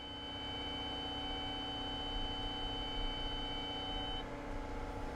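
Cat 315 excavator's engine and hydraulics working under digging load: a steady hum with a high whine that cuts off about four seconds in.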